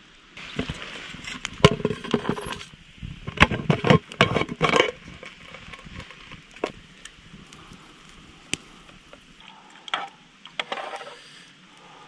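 Metal camp cookware clinking and knocking as a pot is handled over a small wood fire: a quick flurry of sharp knocks and clinks in the first five seconds, then a few scattered clicks and crackles.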